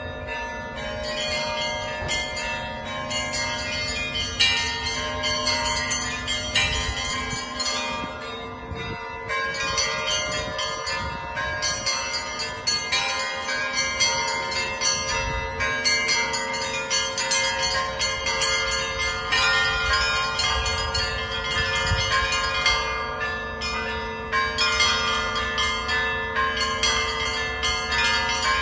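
Russian Orthodox church bells rung by one bell-ringer in a continuous peal. Many small bells are struck quickly over the long, steady ringing of the larger bells.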